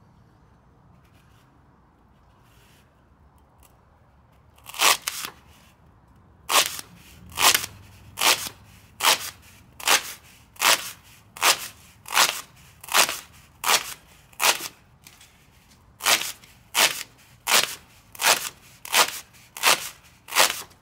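Knife slicing through a foam pool noodle: about twenty short cutting strokes, one roughly every three-quarters of a second, starting about five seconds in, with a brief pause about two-thirds of the way through.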